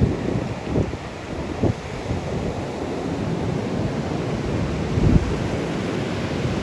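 Rough sea churned up by cyclone winds, with waves surging and breaking in a steady wash of noise and wind rumbling on the microphone in gusts, the strongest swell about five seconds in.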